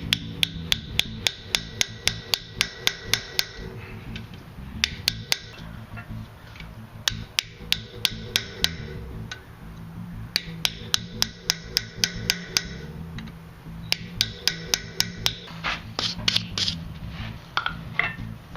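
A hammer striking a chisel to split hot steel bar stock into fork tines. The blows come in quick runs of about four or five a second, each with a short metallic ring, with brief pauses between runs. Background music runs underneath.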